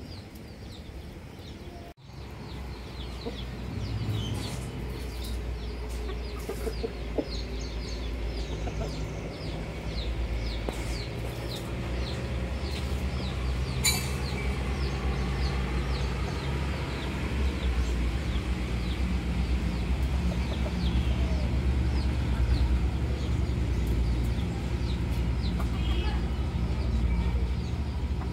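Aseel roosters clucking softly as they forage, over repeated short high chirps and a steady low rumble that sets in about two seconds in and slowly grows louder. A single sharp click about halfway through.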